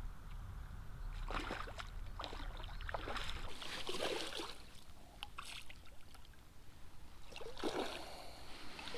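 A hooked trout thrashing at the surface close to the bank, splashing in short irregular bursts as it is played toward the landing net.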